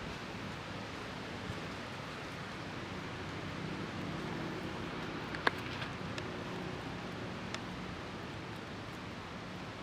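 Steady outdoor background hiss with a faint low hum through the middle and a few sharp clicks, the loudest about five and a half seconds in.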